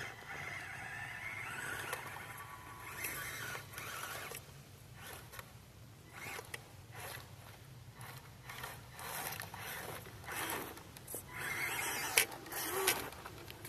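Axial SCX24 Jeep Wrangler micro RC crawler's small electric motor and gears whining on and off as it crawls over rock and dry grass, with crackling and scraping of the brush and stones under it.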